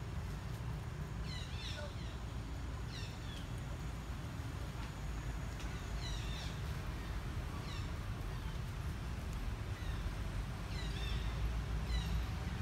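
Outdoor ambience: birds calling in short groups of quick falling chirps every few seconds, over a steady low rumble.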